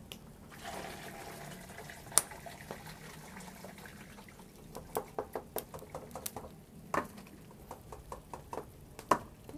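Red chili broth poured from a plastic dipper through a plastic sieve into a basin, running and trickling as the chilies are strained out. A sharp click about two seconds in, then a run of clicks and taps in the second half as the sieve is worked in the basin.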